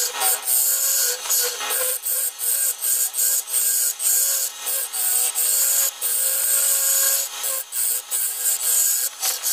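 A gouge cutting the inside of a wooden bowl spinning on a lathe: a hissing, scraping cut that breaks off and resumes many times as the tool is swept across and lifted from the wood.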